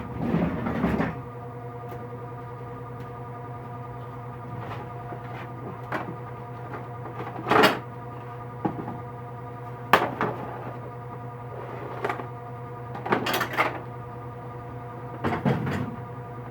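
Scattered knocks and clatter of things being shifted while plastic storage bins are searched for and pulled out, over a steady electrical hum.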